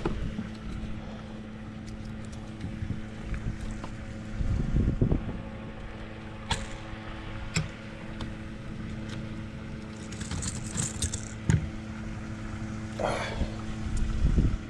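Boat motor running with a steady hum, under scattered knocks and thumps as a striped bass is handled on the boat's carpeted deck, with a brief high rattle about ten seconds in.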